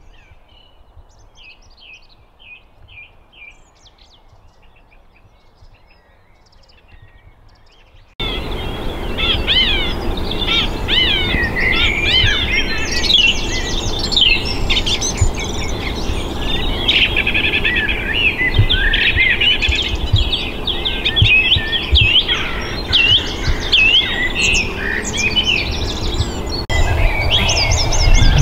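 Wild birds singing and chirping, a chorus of many overlapping songs. It is faint and sparse at first, then suddenly much louder and denser about a third of the way in, with a low rumble underneath.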